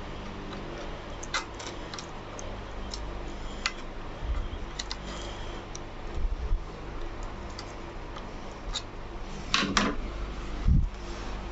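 Scattered light clicks and taps, with a few dull low thumps: hands handling an overlocker sewing machine and its parts while its oil is being drained.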